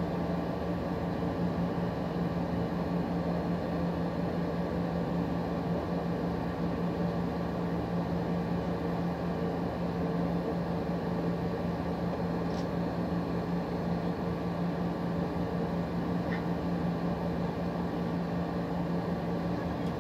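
A steady machine hum with a low, even drone, unchanging throughout. Two faint clicks come in the second half.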